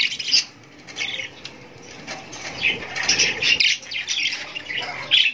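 Caged budgerigars chirping and chattering in many short high bursts while they feed, with wing flutters among them.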